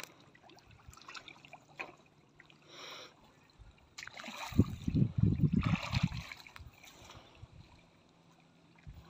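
Muddy ditch water sloshing and splashing as hands grope through the soft bed, with a louder spell of splashing from about four to six seconds in.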